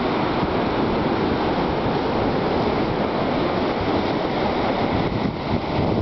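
Ocean surf breaking over rocks and washing up the sand: a steady rush of foaming water, with wind rumbling on the microphone.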